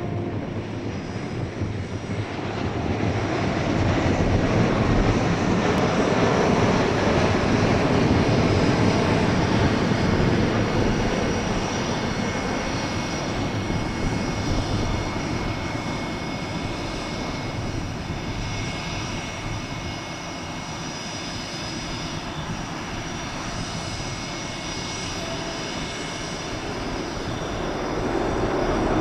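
The Airbus A380-800's four jet engines on a landing approach: a steady rumble with a high whine in it. It grows loudest a few seconds in as the airliner comes closest, eases off as it touches down and rolls along the runway, then swells again near the end.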